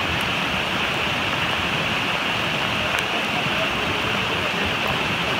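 Steady rush of a rain-swollen mountain river in flood, its muddy rapids running hard close by, with rain falling.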